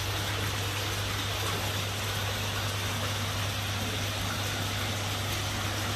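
Steady rush of water with a constant low hum from a pump running in a koi holding tub.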